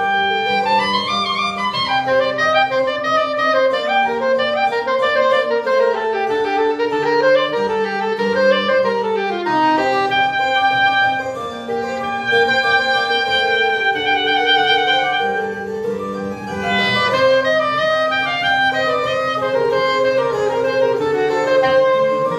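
Soprano saxophone playing a flowing melody, with a falling slide about nine seconds in, over lower held accompaniment notes.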